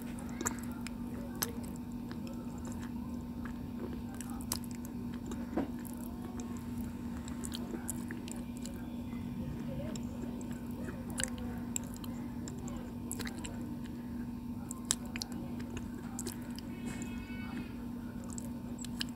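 Close-mouthed chewing of a chalky white stone eaten for ASMR, with scattered sharp crunches as it breaks between the teeth. A steady low hum runs underneath.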